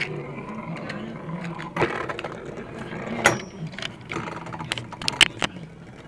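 Beyblade spinning tops whirring on a tabletop, with a wavering hum and several sharp clacks as they knock into each other.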